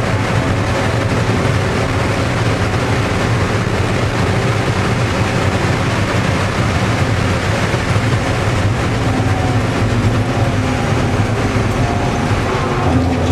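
Race car's engine running at steady high speed, heard from inside the cabin along with a loud, even rush of road and wind noise.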